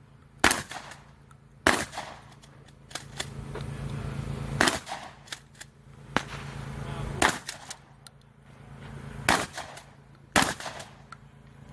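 Six gunshots fired one to three seconds apart, with smaller clicks between the shots.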